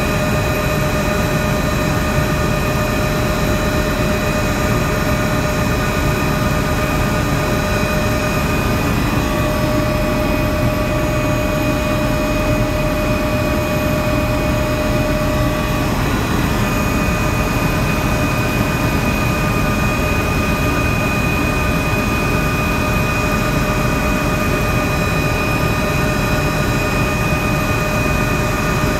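Helicopter turbine and rotor noise heard on board in flight: a loud, steady rushing drone with a constant high whine on top.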